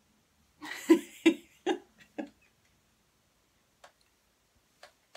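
A woman laughing: a short burst of about four laughs, starting about a second in, then a few faint clicks near the end.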